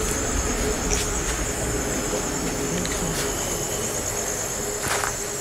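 Night insects chirring in a steady, high-pitched chorus, with a few faint clicks over it.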